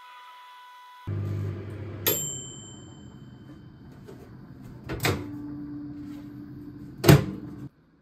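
Microwave oven running with a steady low hum that starts about a second in and cuts off suddenly near the end. A sharp click with a short ringing tone comes about two seconds in, and two more clicks follow.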